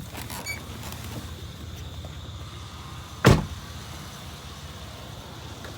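A vehicle engine idling with a steady low rumble, and a single loud thump a little over three seconds in.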